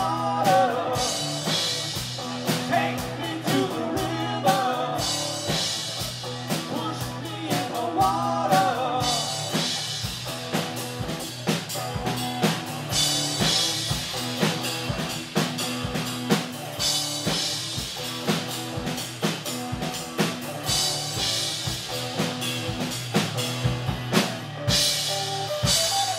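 Live rock band playing: drum kit, electric and acoustic guitars, with a man singing lead in the first several seconds and the instruments carrying on after.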